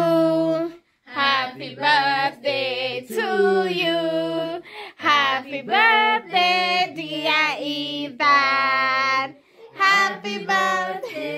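Singing in a child's and a woman's voices, with long held and gliding notes. There are short breaks about a second in and near the end.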